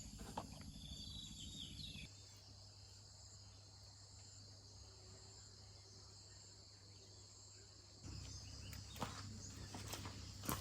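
Steady high-pitched insect chorus drones on, with a few faint sharp clicks near the end.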